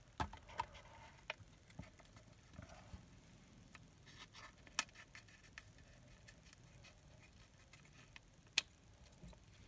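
Small pointed scissors snipping open the leathery shells of ball python eggs, with the eggs handled against a plastic grid: scattered soft clicks and snips, a sharper click about five seconds in and the loudest one near the end.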